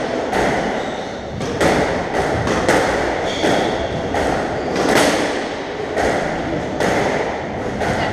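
Squash ball being struck back and forth in a rally: sharp thuds of racket hits and the ball striking the court walls, about one a second.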